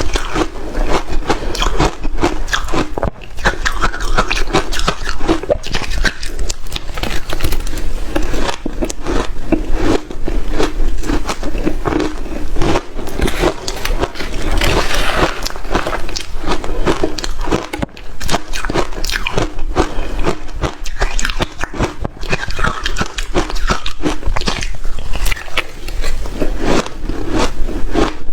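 Close-up crunching of hard shaved ice: continuous bites and chewing, a dense run of sharp cracks with barely a pause.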